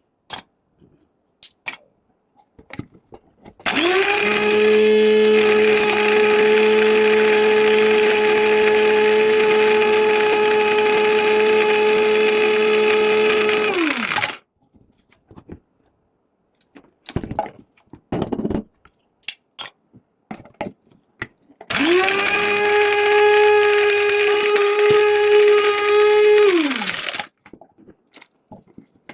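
500-watt electric spice grinder grinding cinnamon: the motor winds up and runs at a steady hum for about ten seconds, then winds down. After a few clicks and knocks it runs again for about five seconds and winds down.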